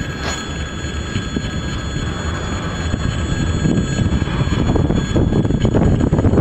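Freight train's wagons rolling past at close range: a steady rumble of wheels on rails that grows louder over the last few seconds.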